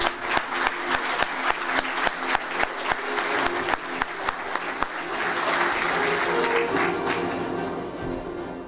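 Audience applauding over background music; the clapping fades near the end.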